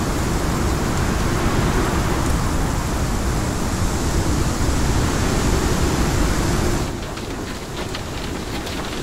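Heavy rain in a thunderstorm downpour, a steady even rush. About seven seconds in it changes to a quieter spatter of many separate drops: rain hitting a van's windshield and body, heard from inside.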